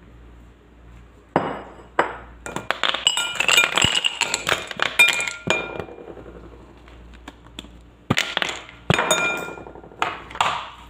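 Glassware clinking and knocking in a series of sharp clinks with short ringing tones, densest in the middle and sparser towards the end.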